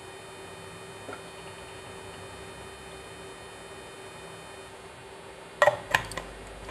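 Steady electrical hum of an induction cooktop heating oil in a pan. Near the end come a few sharp knocks of a wooden spatula against the nonstick pan.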